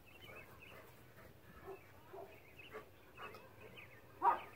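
A large dog barks once, sharply, near the end, with faint bird chirps in the background.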